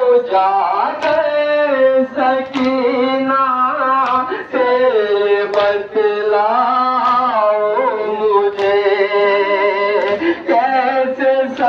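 A man's voice chanting a nauha, a Muharram lament, into a microphone in long held, bending notes. Sharp chest-beating (matam) strikes fall about every second and a half in time with the chant.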